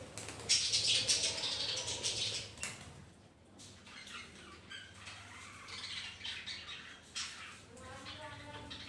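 Colony of pet budgerigars chirping and chattering, with a flurry of wing flapping about half a second in that lasts a couple of seconds, and a quick run of chirps near the end.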